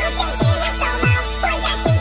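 Hip-hop rap track with a sped-up, high-pitched chipmunk-style rap vocal over a beat, with three deep bass hits that slide down in pitch.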